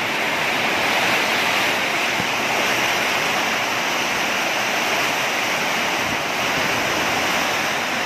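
Heavy thunderstorm downpour driven by strong wind: a steady, dense rush of rain.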